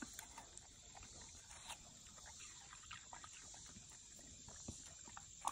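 A Belgian Malinois chewing watermelon: faint, irregular crunching and lip-licking, with one sharper click near the end.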